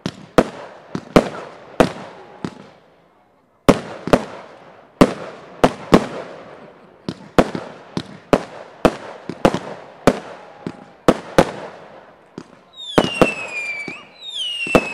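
Sky Unlimited SKB505 Super Show fireworks firing: a rapid series of sharp bangs as the shots burst, with a short pause about three seconds in before the bangs resume. Near the end, shrill whistles falling in pitch join the bangs.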